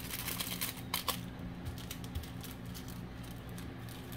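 Clear plastic being handled, giving a few sharp clicks and crackles in the first second or so, over a steady low hum.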